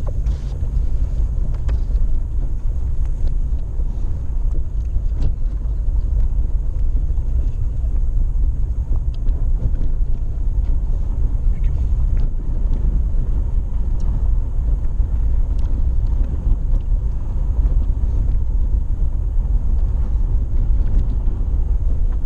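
Off-road vehicle driving a dirt mountain road: a steady low engine and drivetrain rumble with tyre noise and scattered small knocks.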